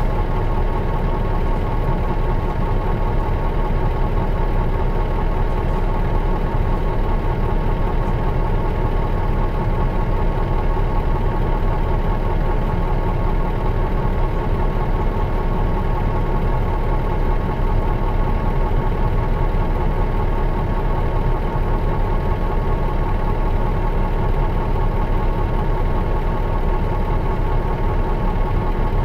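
Diesel engine of a Mitsubishi Fuso Aero Bus KL-MS86MP coach idling steadily, with a steady whine above the engine hum.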